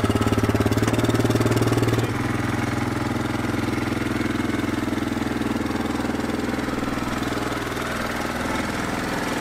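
Yamaha Kodiak ATV's single-cylinder engine running as the quad climbs the loading ramps into a pickup bed. About two seconds in it drops to a quieter, steady idle once the ATV is up in the bed.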